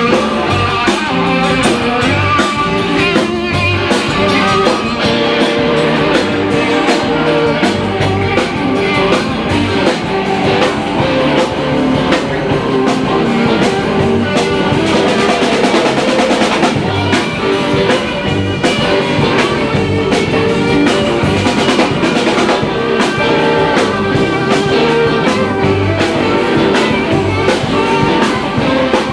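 Blues band playing live: electric guitar over a steady drum-kit beat.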